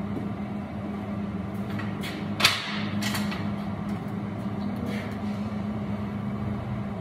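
Steady low hum of shop equipment, with one sharp metallic knock about two and a half seconds in and a few faint clicks of parts being handled on a steel table.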